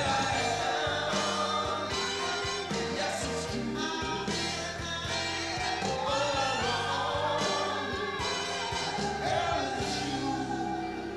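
Recorded music with singing voices over instruments.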